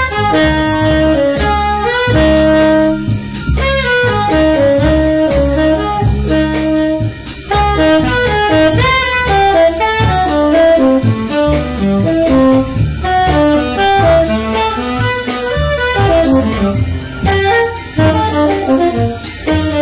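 Tenor saxophone playing a jazz solo of quick, moving phrases over upright bass and drums, in a straight-ahead jazz style.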